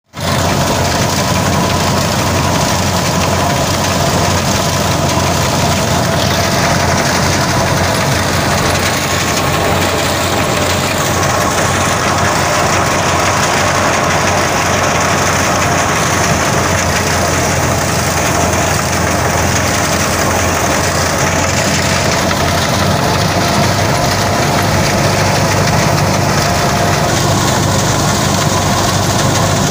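Tractor-driven wheat thresher running steadily while wheat is fed in and threshed: a continuous loud mechanical din of the drum, belts and pulleys, with the steady hum of the tractor engine.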